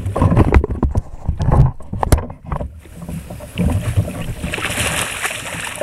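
A run of sharp knocks and thumps of the aluminium landing-net handle against a kayak as the net is worked. About three and a half seconds in, a steady rushing noise of water takes over.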